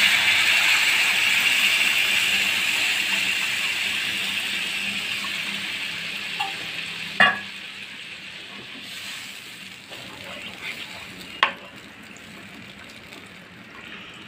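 Tamarind water hitting hot oil and masala in a pan, sizzling hard at first and fading steadily as it settles. Two sharp clinks of a spoon against the pan, about seven and eleven seconds in.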